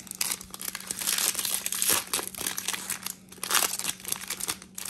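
Crinkling plastic wrapper of a Topps baseball card pack being handled and torn open, a dense run of sharp crackles.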